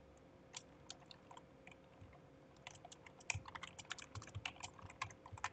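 Computer keyboard typing, faint: a few scattered key presses at first, then a quick run of keystrokes from about halfway through.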